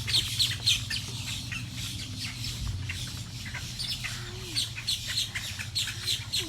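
Many birds calling together, a dense chatter of short, quick, high-pitched chirps and squawks, over a steady low hum.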